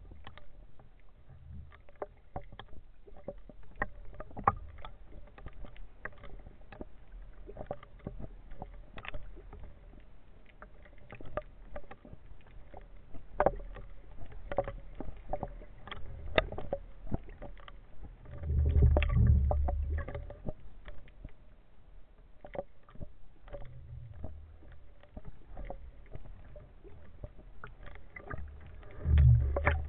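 Sea water sloshing and lapping around a half-submerged camera on a speargun at the surface, with a steady crackle of small clicks. Two louder, deeper surges of water come about two-thirds of the way in and again near the end.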